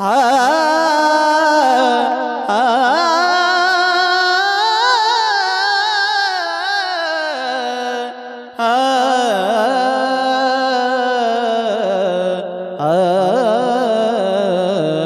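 A kirtan singer's high voice holding long sung notes with a wide vibrato, wordless, climbing to a peak and breaking off briefly twice to take breath.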